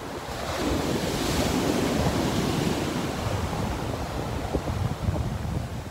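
Small ocean waves breaking and washing up a sandy beach, a wash of surf that swells over the first second or two and then slowly eases, with wind buffeting the microphone.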